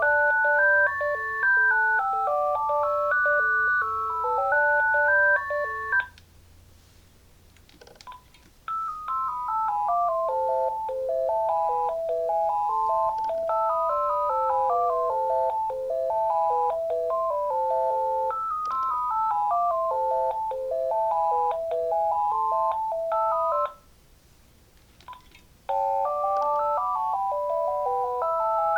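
Uniden TCX 905 cordless phone handset playing its built-in electronic ringtone melodies, simple beeping tunes of two or three notes at once. One tune stops about six seconds in. After a short pause with faint clicks, a second tune plays for about fifteen seconds. After another pause, a third tune begins near the end.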